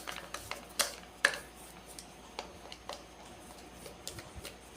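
Scattered light clicks and taps from handling and unscrewing the plastic housing of an industrial plug during disassembly, with two sharper clicks close together about a second in.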